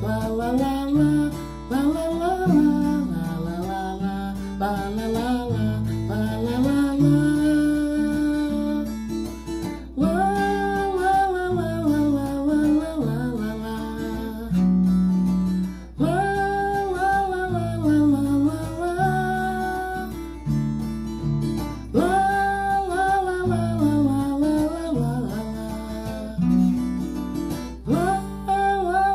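A man singing a melody over a strummed acoustic guitar, his phrases starting about every six seconds.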